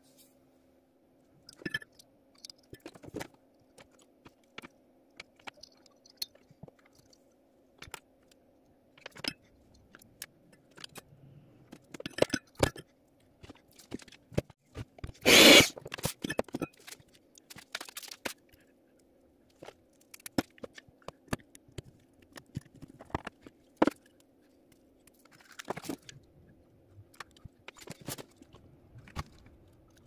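Small electronic parts and tools being handled on a hard tabletop: scattered clicks, taps and short scrapes, with one louder noise lasting under a second about halfway through, over a faint steady hum.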